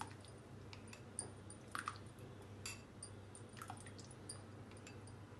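A metal spoon scraping and clinking in a glass bowl while ghee is spooned into a pan, heard as a few faint, scattered clicks over a low steady hum.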